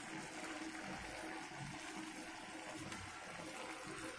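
Faint, steady bubbling of a thick gravy simmering in a pan.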